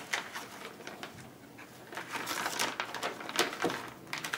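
Plastic vacuum-sealer bag crinkling and rustling on and off as it is handled and laid on the sealer's tray.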